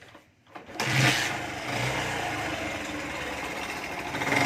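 Bajaj CT 100 motorcycle's single-cylinder four-stroke engine starting up under a second in and then running steadily, with a ticking knock that the mechanic puts down to a worn big-end bearing on the crankshaft.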